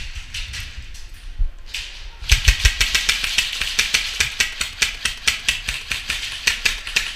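Airsoft electric gun firing a rapid, even string of sharp shots, starting about two seconds in.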